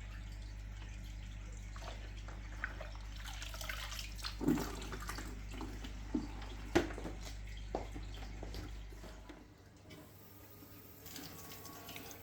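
Water running and splashing in a sink as the dirty foam and parts of an Eheim internal aquarium filter are rinsed by hand, with a few sharper splashes. A low steady hum underneath cuts out about nine and a half seconds in.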